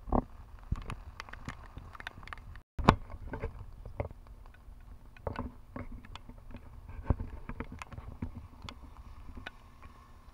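Wind rumbling on the microphone in a rainstorm, with many irregular sharp taps of raindrops hitting the camera. The sound cuts out for a moment about two and a half seconds in.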